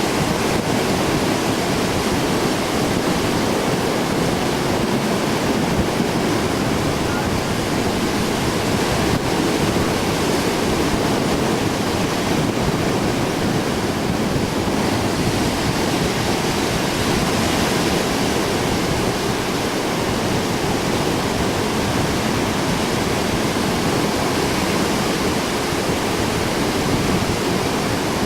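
Heavy surf breaking steadily under strong wind, a dense continuous rush of surf and gusts over the microphone.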